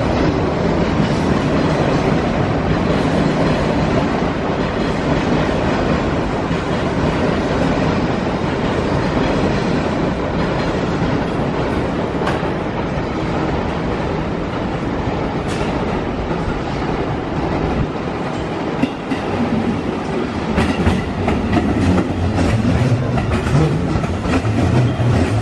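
JR West 205 series 1000 electric commuter train running on the line with a steady rumble. In the last few seconds, as the cars pass close, the wheels clatter in quick clicks over rail joints and points.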